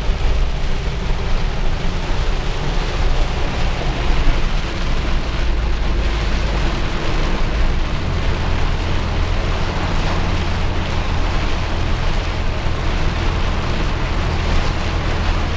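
Heavy rain on a moving car and its tyres hissing on a soaked highway, heard from inside the car: a steady wash of noise over a deep rumble.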